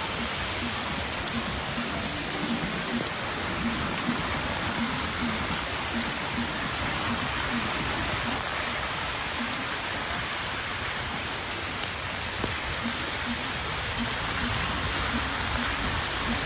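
Steady hiss of rain and wet road noise heard from a moving car.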